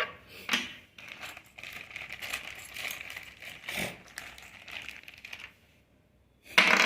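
Light clicks and rattles of small plastic and metal parts being handled as a snap-on presser foot is changed on a Singer sewing machine, ending in a short louder clatter.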